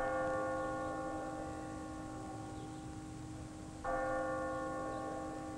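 A bell struck twice, about four seconds apart, each stroke ringing and fading slowly over a steady low hum.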